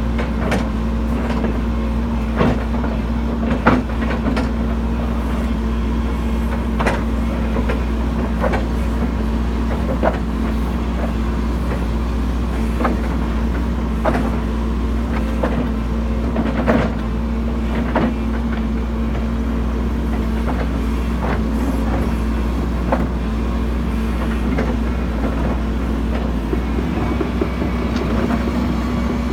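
Hidromek tracked excavator's diesel engine running steadily under working load as its bucket spreads and levels soil, with frequent short clanks and knocks from the bucket and linkage.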